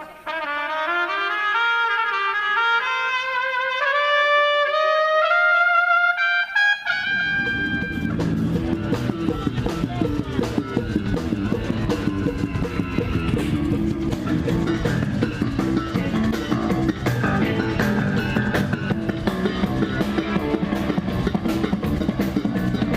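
A trumpet plays a run of notes climbing step by step for a sound check. About seven seconds in, the full band comes in and plays on with a steady drum beat under it.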